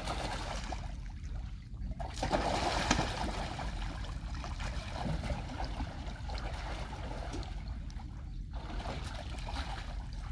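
Water trickling and lapping, louder for about a second starting about two seconds in.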